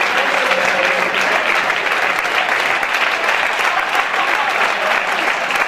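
Crowd applauding: dense, steady clapping.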